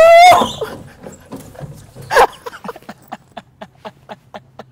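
A person whooping as they set off down a narrow playground slide, the loud cry breaking off within half a second. About two seconds in comes a short yell, then a quick, even run of light knocks, about five a second, fading out.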